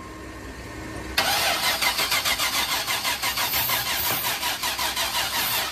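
1998 GMC pickup engine cranked over by the starter from about a second in, turning in an even rhythm without firing, while starter fluid is sprayed into the throttle body. It cranks but won't catch, which the mechanics put down to no spark.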